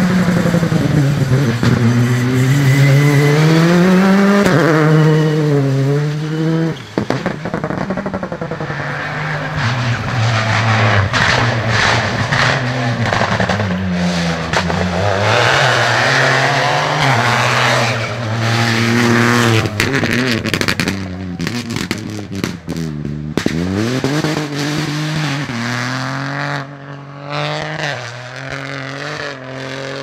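Rally cars at full throttle passing on a stage, a Citroën C3 and an Opel Corsa among them. Their engines rev up and drop back sharply at each gear change, again and again. A run of sharp cracks comes about two-thirds of the way in.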